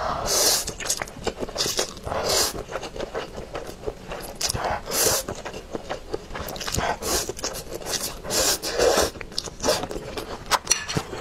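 A person slurping saucy instant noodles off metal chopsticks, several loud hissing slurps with wet chewing and small mouth clicks between them, close on a clip-on microphone.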